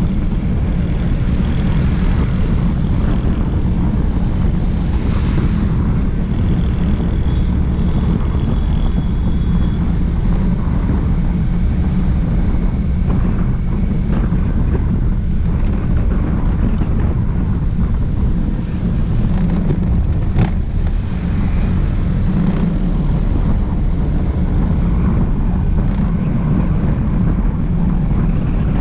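Wind buffeting a vehicle-mounted action camera's microphone, mixed with engine and tyre noise at road speed: a loud, steady low rumble. There is one sharp click about two-thirds of the way in.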